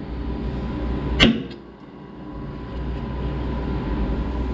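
A single sharp metallic strike about a second in, a hammer hitting a dot punch on the car's steel body panel, over a low steady hum.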